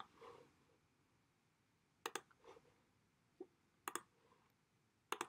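A few sharp computer mouse clicks, about five, two of them in quick pairs, against near silence.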